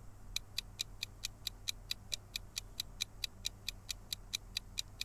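Countdown timer sound effect: quick, even clock-like ticking, about four to five ticks a second.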